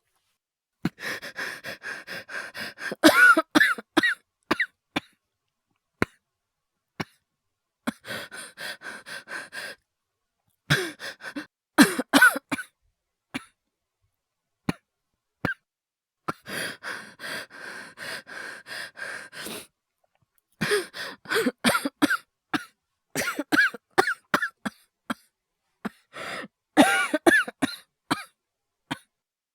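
A man's voice acting a coughing fit: about five bouts of coughing, several of them after a stretch of quick, ragged breathing. The coughs are performed, not from illness.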